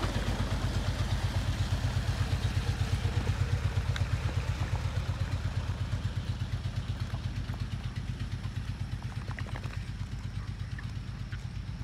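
Engine of a tube-well pump running with a steady, rhythmic low thump, about seven beats a second, growing slowly fainter.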